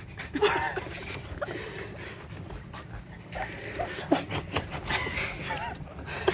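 A person panting hard, with wet mouth clicks and smacks as he eats jelly rings off someone's toes without using his hands.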